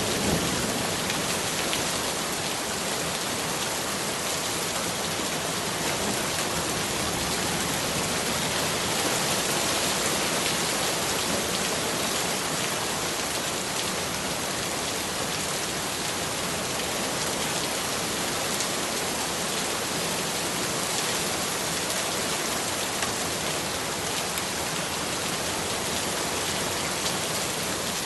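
Steady heavy rain falling, a dense even hiss with fine patter of drops hitting a surface.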